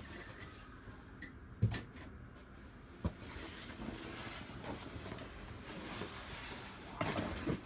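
Handling noises of someone moving objects about off camera: a sharp knock a little over a second and a half in, a second knock about three seconds in, and a scraping, rustling clatter near the end.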